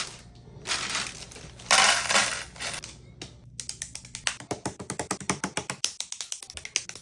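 Loose LEGO plastic pieces clattering: a bag of bricks rustled and tipped out, then from about halfway a quick run of small plastic clicks as the pieces tumble and are spread across a table.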